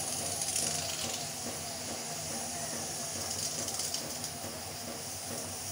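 Pressure cooker on a gas stove hissing steam, the hiss swelling twice, as pressure builds between whistles.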